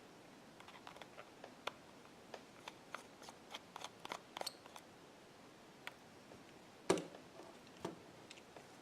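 Small, scattered clicks and ticks of a precision screwdriver working on an iPhone 6 as its two bottom screws are undone, with one louder tap about seven seconds in and another about a second later.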